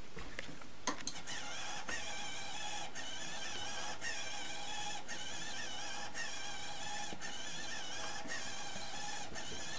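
Hobby RC servo motor whining as a servo tester drives it, tilting a 3D-printed motor mount through its range via a tie-rod linkage. The whine wavers up and down in pitch as the servo moves.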